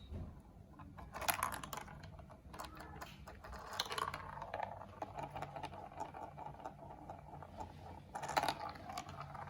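Glass marbles rolling and clattering through a plastic marble run: dense bursts of small hard clicks about a second in, about four seconds in and near the end, with a steady fine rattle of rolling between them.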